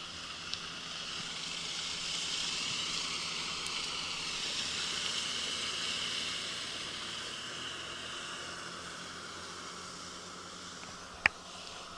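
Motorboat passing at a distance: a hissing rush that swells over the first few seconds and slowly fades away. A single sharp click comes near the end.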